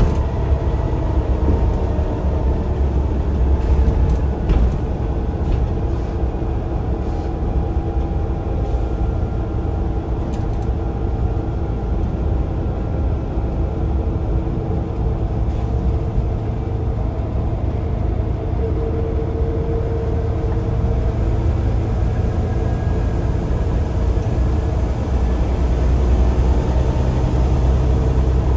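Scania OmniCity single-deck bus heard from inside the saloon while under way: a steady low engine rumble, with an engine and transmission whine that drifts up and down in pitch and a few light interior rattles.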